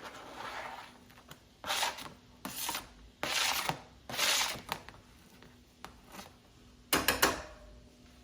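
Spatula scraping and stirring chopped onion and garlic in a frying pan, in about six short, separate strokes.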